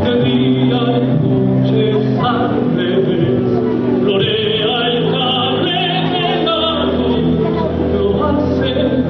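Stage-musical song playing loud and steady, with singing over held notes and a wavering high line in the middle.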